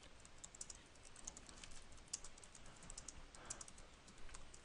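Faint typing on a computer keyboard: a quick, irregular run of keystrokes as a sentence is typed.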